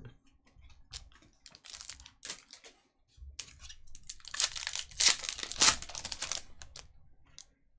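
Trading cards handled with a few light clicks, then a Topps Chrome foil card pack torn open and its wrapper crinkled, the crackling loudest about five to six seconds in.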